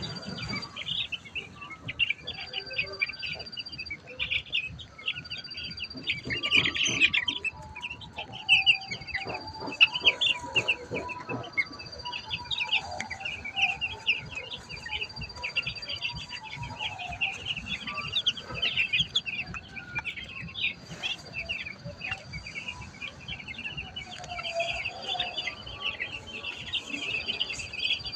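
A flock of chicken chicks peeping continuously, many high short chirps overlapping.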